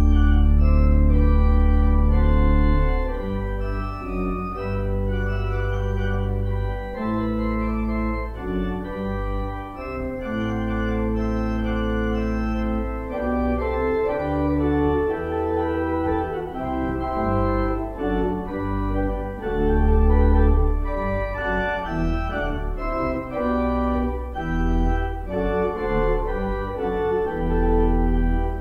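Organ voluntary after the dismissal: a loud held chord with deep pedal bass for about the first three seconds, then moving melodic lines over long sustained bass notes.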